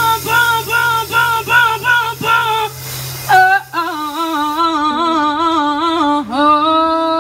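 Female lead singer belting with a live band: short repeated sung phrases over a steady bass note, then one long held note with vibrato as the bass drops out about four seconds in.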